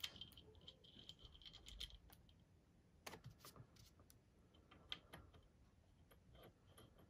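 Faint, sparse small metallic clicks and taps of a sewing machine hand wheel and its clutch screw being fitted by hand onto the machine's shaft, a few clicks around three seconds in and again around five seconds in.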